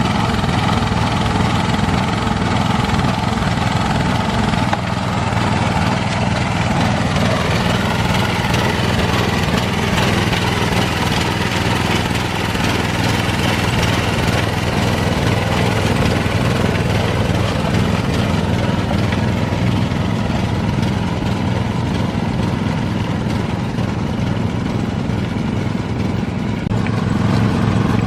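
Rice transplanter's engine running steadily and close, without letting up.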